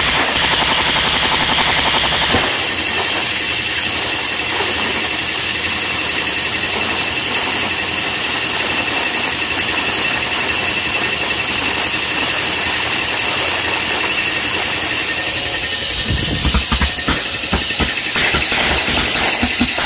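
Homemade propane-fuelled pulse jet engine running loudly: a harsh, rapid buzzing pulse over a strong hiss. The low rumble drops away about two and a half seconds in and comes back near the end.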